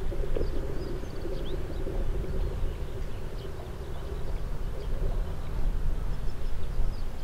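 Steady low outdoor rumble, with short, faint high chirps of small birds scattered throughout.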